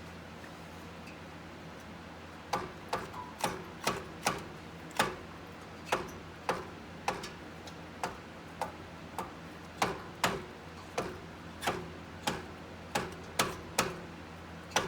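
Rubber hammer striking repeatedly, about twenty sharp blows at roughly two a second starting a couple of seconds in, to knock a stuck yoke joint off its splines on a Honda Pioneer 500 UTV.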